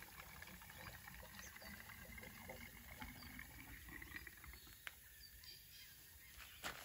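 Two-stroke fuel mix pouring from a plastic jerry can into a mini bike's fuel tank: a faint trickle that rises slightly in pitch as the tank fills and stops about five seconds in. A knock near the end as the can is moved.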